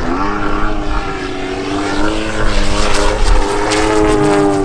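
Large-scale RC aerobatic model airplane's engine and propeller droning in flight, holding a fairly steady pitch that wavers slightly.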